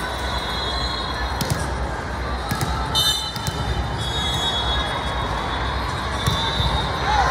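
Echoing volleyball-hall din: steady crowd chatter with a few sharp smacks of volleyballs being hit or bouncing, and brief high squeaks.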